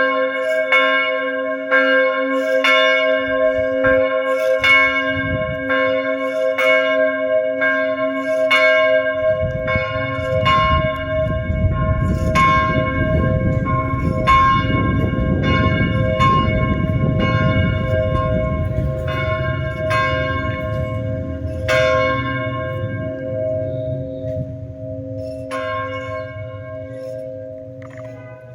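Church bell ringing in quick, even strikes, about three every two seconds, with a steady hum ringing on between them; a low rumble runs under it through the middle. Near the end the strikes come with gaps and the ringing fades.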